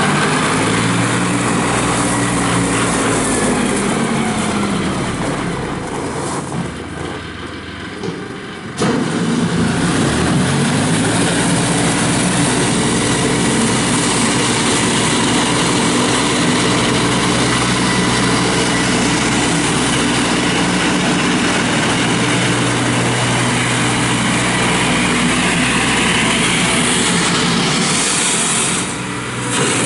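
John Deere 5045D tractor's 45 hp turbo diesel engine running under changing throttle, its pitch rising and falling. It goes quieter for a few seconds and comes back suddenly about nine seconds in, then holds steady.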